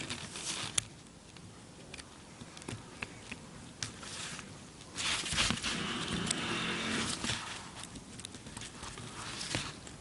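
Small clicks and scrapes of a metal pick working at a stuck cork gasket in a Tillotson carburetor's cover, with the rustle of gloved hands handling the carburetor. A louder stretch of scraping and rubbing comes about five seconds in and lasts a couple of seconds.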